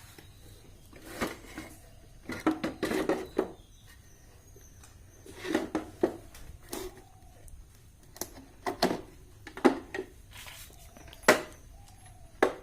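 Irregular clicks, knocks and light rattles of objects being handled, in a small room, coming in short clusters a second or two apart.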